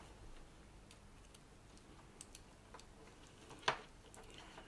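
Faint, scattered small clicks and taps of fingers handling a small circuit board and working thermocouple wires into its screw terminals, with one louder click a little past halfway.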